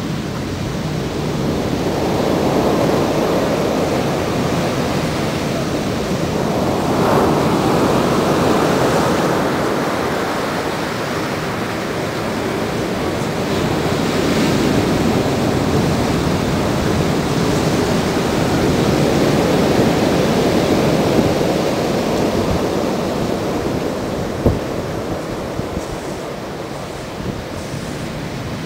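Heavy Pacific Ocean surf: large waves breaking and washing up the beach, the surf noise swelling and easing several times as the waves come in.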